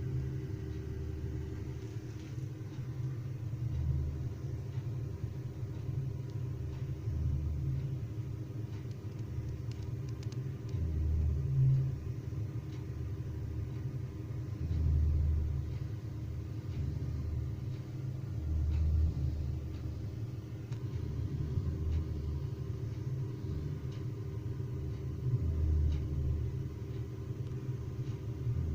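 A person snoring: deep snores swelling about every three to four seconds, over a steady low background hum.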